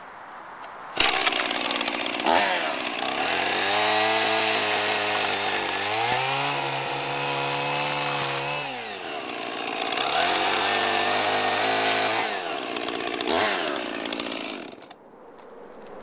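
Chainsaw cutting along the edge of a log, the engine pitch dropping and rising again and again as the chain bites into the wood and frees up. It starts abruptly about a second in and dies away near the end.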